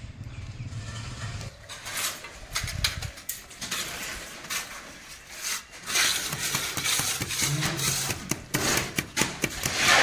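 Metal objects clattering and knocking: a run of irregular clanks and scrapes that grows busier and louder in the second half.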